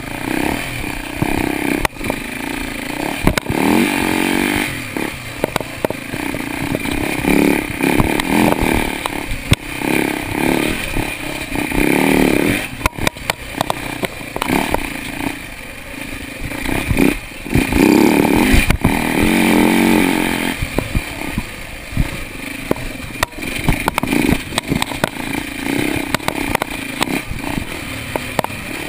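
Dirt bike engine being ridden hard along a rough trail, its revs repeatedly rising and falling as the throttle is opened and closed. Frequent knocks and rattles from the bike jolting over the bumpy ground.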